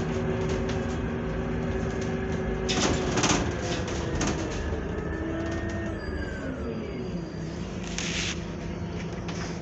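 Inside a Scania Citywide CNG city bus: the gas engine and ZF Ecolife automatic gearbox hum steadily, and midway a whine falls in pitch as the bus slows. Two short hisses come through, about three seconds in and near the end.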